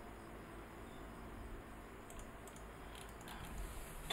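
A few faint clicks of a computer mouse and keyboard, scattered through the second half, the sharpest one at the end.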